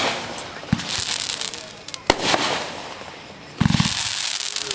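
Rain Maker 500-gram consumer firework cake firing: sharp shots about every one to two seconds, each followed by a crackling hiss as the stars burn out, and a heavier launch thump near the end as the next shell goes up.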